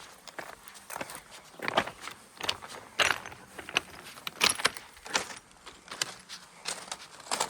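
Footsteps on loose stony ground: irregular crunching steps, about one or two a second.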